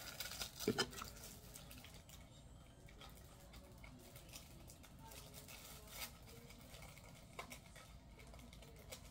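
Faint handling of small wallets and their packaging: a few light clicks and taps, the loudest about a second in, with quiet rustling between.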